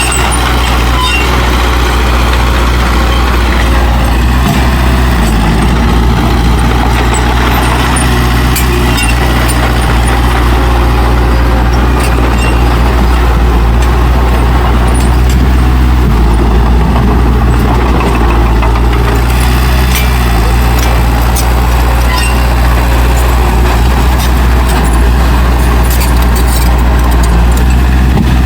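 Heavy diesel earthmoving machinery running steadily under load, with a deep engine drone and faint scattered clicks and rattles.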